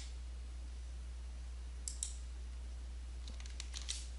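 A few faint, short clicks of a computer mouse and keyboard, once about two seconds in and a few more near the end, over a steady low electrical hum.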